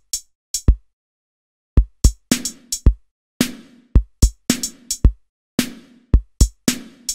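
Software drum machine playing a programmed beat of punchy kick-drum hits. After a gap of about a second, a busier pattern of kicks and snare hits with short noisy tails follows.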